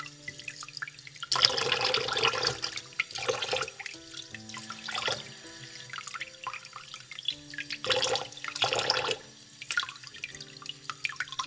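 Kitchen tap water running in several gushes as shrimp are rinsed under it, the longest gush lasting nearly two seconds. Soft background music plays throughout.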